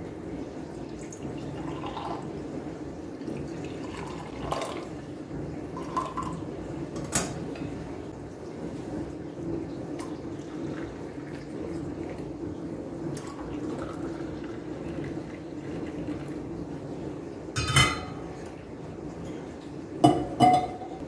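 Tea poured from a porcelain teapot and then hot water from an enamel kettle into glass tea cups, with light clinks of china and glass. There are sharper, louder clinks near the end.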